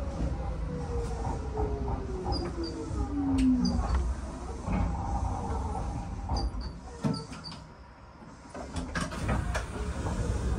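Hanshin 5001-series commuter train braking to a stop, heard from inside the car: a motor whine falls steadily in pitch over the first four seconds over a low rumble. Then come scattered clicks and knocks as the car stands at the station.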